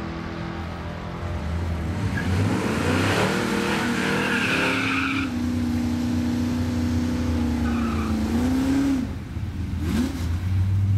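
Drag car doing a burnout at the starting line: the engine revs hard with the tires squealing for a few seconds. The engine is then held at steady revs, with a quick rev blip near the end.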